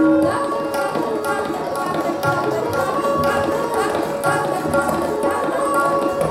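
Live Hindustani classical music accompanying Kathak dance: tabla strokes under a sustained melodic line, keeping a steady level.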